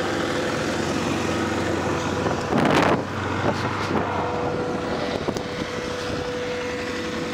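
ATV engine running steadily as the quad turns around, with a brief louder rush about two and a half seconds in.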